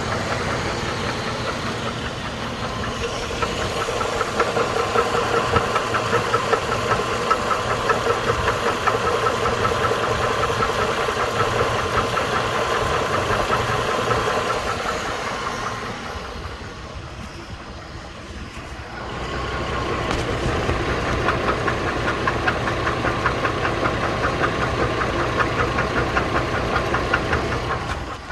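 2008 GMC Envoy engine with 220,000 miles running with a steady, rhythmic knock. The sound drops quieter for a few seconds past the middle, then comes back at the same level.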